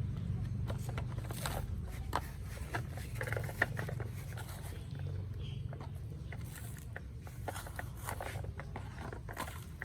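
Toy trucks being handled in play: scattered light clicks, taps and scrapes over a low steady hum.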